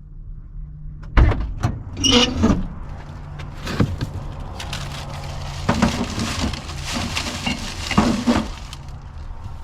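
Irregular knocks, clunks and clatter of objects and doors being handled, over a faint steady low hum.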